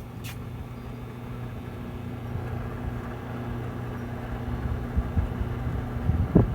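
1980 J.C. Penney microwave oven running: a steady electrical hum, with wind rumble on the microphone underneath.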